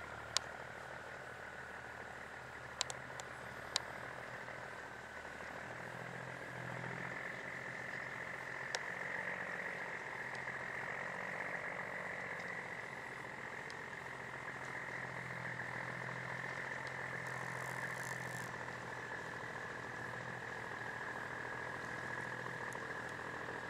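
Harvest machinery running steadily at a distance, with a sustained whine that rises a little in pitch about six seconds in and a low hum underneath; a few sharp clicks in the first few seconds.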